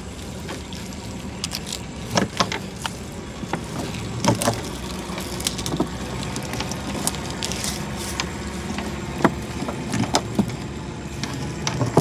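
Gill net being hauled by hand into a small boat: scattered knocks and splashes of net and water against the hull, over a steady engine hum.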